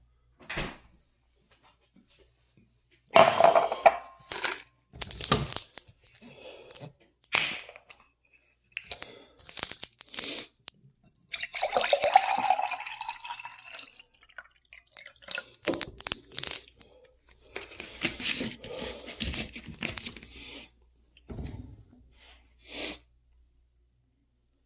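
Close-up meal noises: irregular crunches and crinkles in clusters, the loudest a few seconds in and a longer, busier stretch about twelve seconds in.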